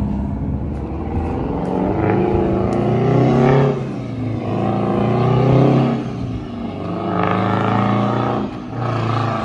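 Detroit 8V71 turbocharged and supercharged two-stroke diesel in a 1978 Kenworth W900A, running through straight pipes as the truck pulls away under power. The pitch climbs and then drops back three times, at each gearshift.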